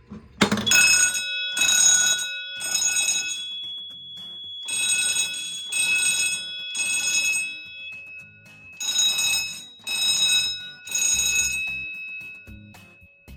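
Fire alarm signals on a Notifier System 5000 panel in alarm, sounding the temporal three-pulse evacuation pattern: three rounds of three short blasts. They fall silent near the end as the panel's audible silence takes effect.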